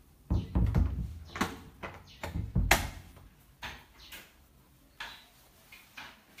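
Wooden interior door being opened and passed through: low bumps, then a run of sharp handle and latch clicks and knocks, the loudest near the middle, fading to lighter clicks.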